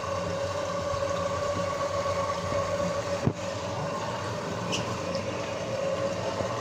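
Pump running with a steady hum, with a single knock about three seconds in.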